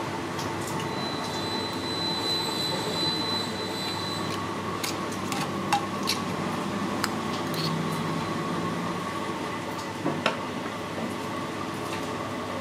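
A steady background hum with a thin high whine in the first few seconds. Over it come a few sharp clicks and taps, a cluster about halfway and two more near the end, as a knife works against the inside of a giant clam shell.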